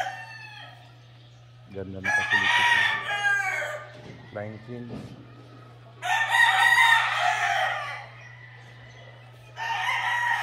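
Gamecocks crowing: three long crows, one after another, a few seconds apart, the last running on past the end.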